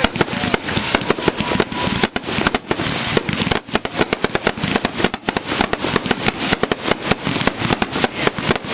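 About eight Mammoth Strobe 500-gram fireworks cakes firing together: a dense, rapid string of pops and bangs that overlap without pause.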